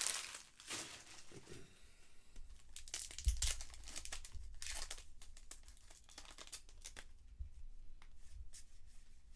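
Trading card pack wrappers crinkling and tearing in short, irregular rustles as packs are opened and handled.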